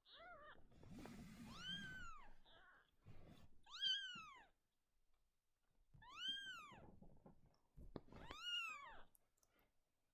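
Newborn kittens mewing: about five thin, high-pitched mews spaced a second or two apart, each rising and then falling in pitch, the loudest about four seconds in.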